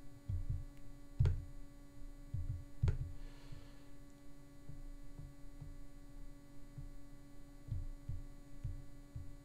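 Steady electrical hum of a quiet recording room, with a few soft low thumps. Two sharp clicks come about a second and three seconds in, typical of a computer mouse being clicked while sliders are dragged.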